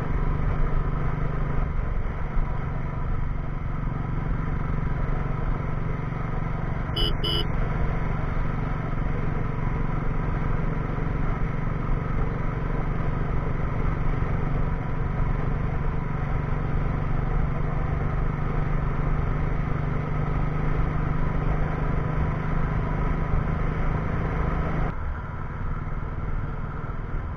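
Royal Enfield Bullet's single-cylinder engine running steadily at cruising speed, with road noise. There is a brief beep about seven seconds in, and the sound changes abruptly near the end.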